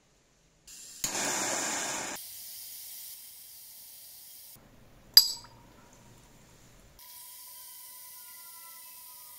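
Handheld gas torch flame hissing steadily as it heats small steel screws red-hot, in stretches that stop and start, loudest about a second in. A single sharp metallic click near the middle.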